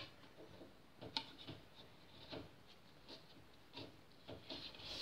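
Faint, scattered light clicks and taps as washing-machine water hoses are worked off their clamps and fitted into a pipe by hand. The clearest click comes about a second in.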